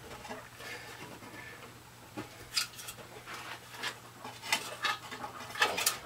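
Scattered light clicks and knocks of the sheet-metal housing and blower motor of a Suburban RV furnace being handled while the motor is freed from its mount, over a faint steady hum.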